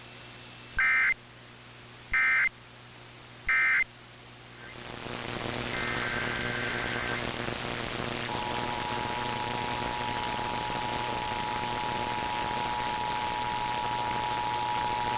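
Three short end-of-message data bursts from an Emergency Alert System transmission, about a second and a half apart, closing out a test. Static hiss then rises, and about 8 seconds in the steady two-tone EAS attention signal starts, announcing the next alert.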